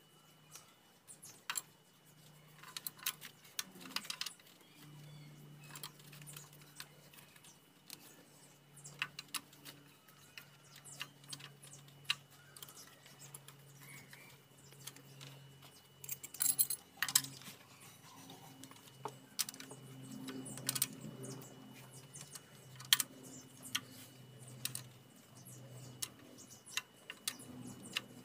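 E-TEC II four-cylinder engine running with a faint low hum and scattered light ticks and clicks from the top end: the valve-train tick that the video puts down to dirty hydraulic lifters.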